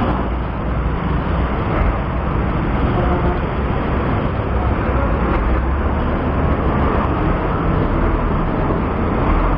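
Road traffic heard from a moving bicycle, with wind on the microphone: a steady, dense rumble and hiss of passing vehicles and air.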